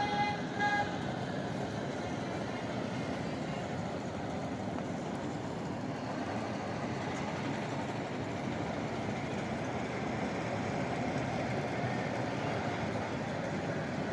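A horn blaring, cutting off about a second in, then the steady running noise of a rail inspection trolley moving along the track.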